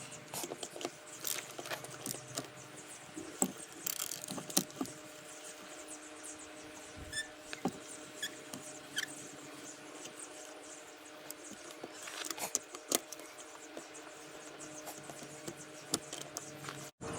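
Scattered light clicks, taps and knocks of hand work on a tractor wheel, metal parts and tools being handled, over a faint steady hum.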